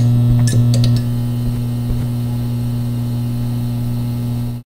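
Neon sign sound effect: electrical crackles as the sign flickers on in the first second, then a steady, loud electrical hum that cuts off suddenly near the end.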